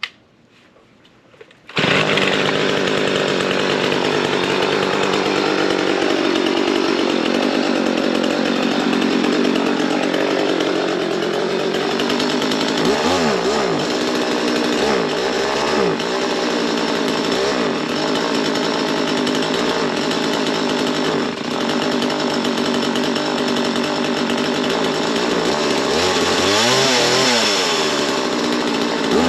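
Small chainsaw starting up about two seconds in and running steadily, its engine speed swinging up and down several times in the middle and again near the end.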